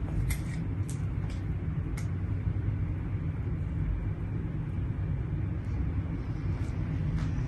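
A steady low rumble, with a few faint, light clicks in the first couple of seconds as a spinning rod and reel are handled.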